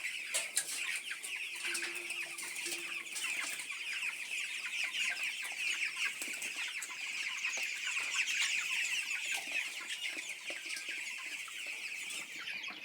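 A coop full of about 350 two-week-old chicks peeping together: a dense, steady chorus of high, overlapping peeps. A couple of sharp clicks about half a second in.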